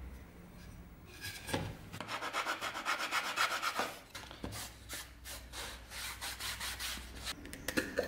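Steel hand tool scraping and shaving a wooden board while a groove is cut into it: a quick run of rubbing strokes from about a second in, then slower, separate strokes.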